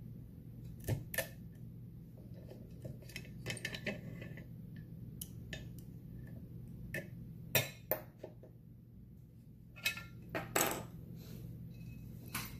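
Sharp metallic clicks and clinks from a Mul-T-Lock cylinder, its picking tools and a small lock vise being handled. They come in scattered clusters, the loudest a little past the middle.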